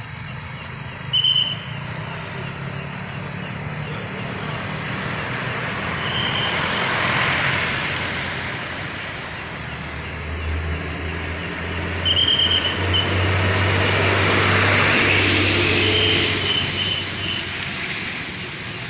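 Road traffic passing on a wet road, with vehicles swelling past twice and a heavy vehicle's engine droning through the second half. Over it come short blasts of a traffic controller's whistle every few seconds, the last ones in quick succession.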